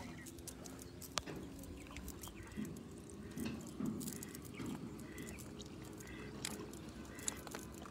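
A duck quacking faintly, several short calls spread over a few seconds, over low outdoor rumble, with one sharp click about a second in.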